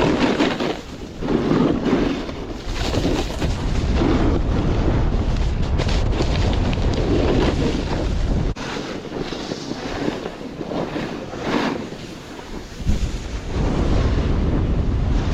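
Strong wind buffeting the microphone in gusts, a heavy low rumble with rushing noise. The rumble drops away for a few seconds past the middle and then comes back.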